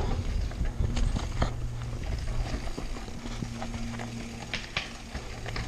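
Mountain bike descending a rocky dirt trail: tyres rolling over dirt and rock, with sharp clicks and rattles over bumps and a steady low buzz underneath.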